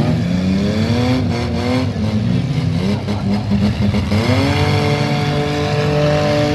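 Compact demolition derby cars' engines revving up and down as the cars ram each other, with a few sharp knocks of metal hitting metal early on. A little over four seconds in, one engine climbs and holds at high revs.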